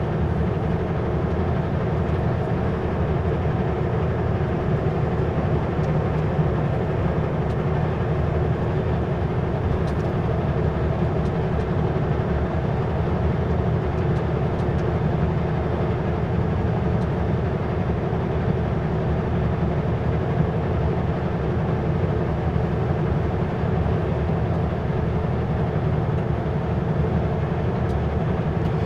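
Kenworth W900L semi truck driving, its diesel engine and road noise making a steady drone.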